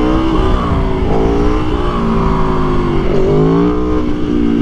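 Aprilia Tuono 1100's V4 engine running under load on the move, its pitch dipping and climbing again twice as the throttle is rolled off and back on, with wind rushing over the helmet microphone.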